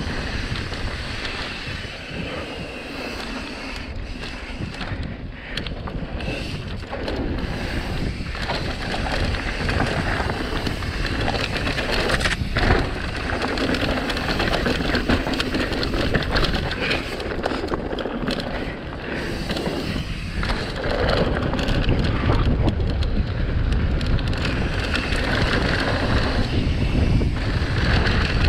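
Mountain bike descending a rough downhill trail at speed: wind buffets the microphone while the tyres roll over dirt and rock and the bike clatters over bumps.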